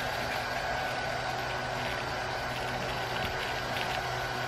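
Steady hum of a running machine, even throughout, with a few faint crinkles of a Mylar emergency blanket being cut.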